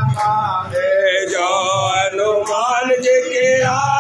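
Male singing of a Hindu aarti hymn in a chanted devotional style, with a steady high shimmer behind the voice from about a second in.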